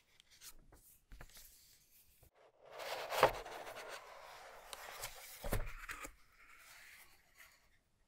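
Cardboard keyboard packaging being handled: light paper clicks, then a dense rubbing scrape of the cardboard insert flap sliding up and out, with two soft knocks about three seconds in and again past five seconds, and a softer rustle after.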